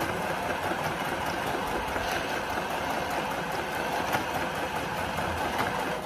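Electric sewing machine running steadily, its motor whirring and its needle stitching in a fast, even patter.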